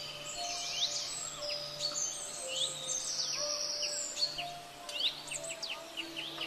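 Many birds chirping and calling in quick, overlapping sweeps, over soft background music with held notes.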